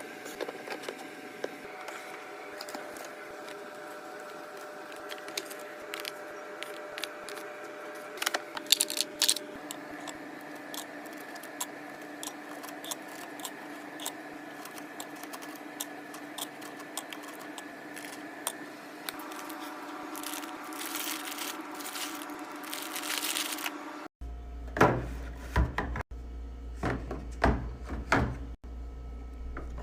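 Food packaging and containers being handled while a fridge is restocked: scattered clicks, scrapes and crinkles over a steady hum. About three-quarters of the way through, the hum changes to a lower one and a few louder knocks follow.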